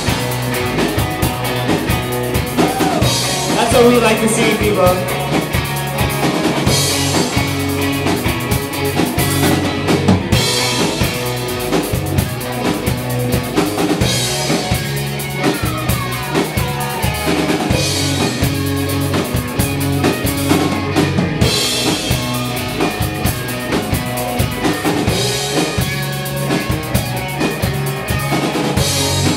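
Live rock band playing an instrumental passage, the drum kit to the fore with kick drum, snare and rimshots under held pitched instruments.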